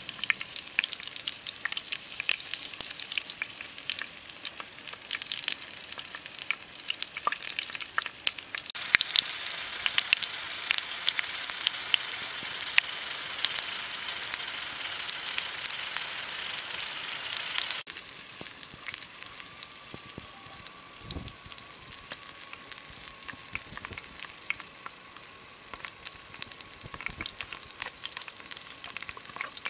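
Centipedes frying in a shallow metal pan over a wood fire: a steady sizzle full of fine crackling pops. The sizzle grows louder about a third of the way in and drops back to a quieter level about two-thirds of the way through.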